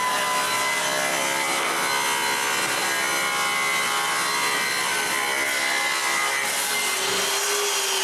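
Table saw ripping a maple board lengthwise: the blade cuts steadily through the wood over the motor's steady whine. The sound thins about seven seconds in.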